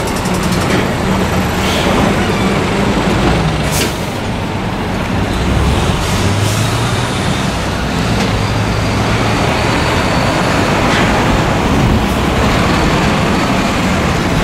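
Heavy diesel truck engines running, with the steady rumble of truck traffic; a short hiss of air comes about four seconds in.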